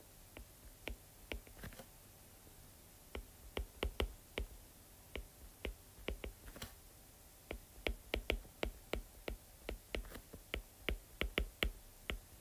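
A stylus tapping and clicking against a tablet screen during handwriting: quick irregular clicks, sparse at first, pausing for about two seconds midway, then coming thick and fast in the last few seconds.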